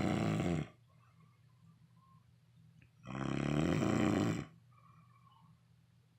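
Snoring in slow, regular breaths: one snore ends about half a second in, and another starts about three seconds in and lasts about a second and a half.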